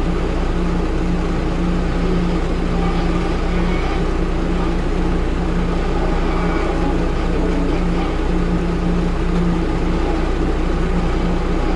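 Truck engine running steadily at an even speed: a constant low hum with no revving.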